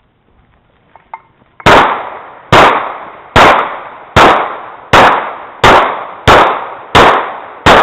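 Handgun fired in a steady string of nine shots, starting about two seconds in and coming just under a second apart, each shot loud and followed by a short echoing tail.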